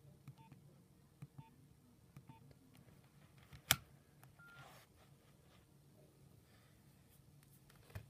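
Nokia 7100 Supernova slide phone: keys pressed three times, each with a short faint key beep, then the slider snapping shut with one sharp click a little before the middle, followed by a brief higher beep.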